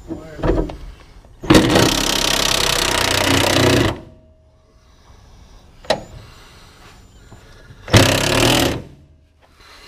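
Cordless impact wrench hammering a bolt tight: one run of about two and a half seconds, then a short burst near the end, with a few light knocks between.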